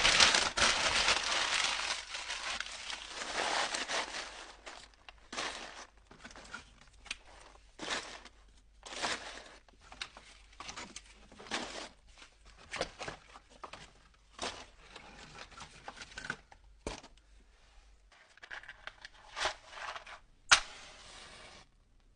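Leaves being crumpled by hand: a dense, continuous crunching for the first few seconds, then separate short crunches about once or twice a second, with one sharp, loud crunch near the end.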